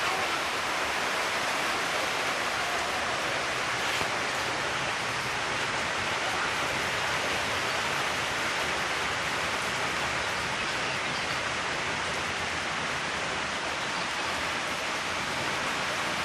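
Steady hiss of a hydrogen gas welding torch flame burning.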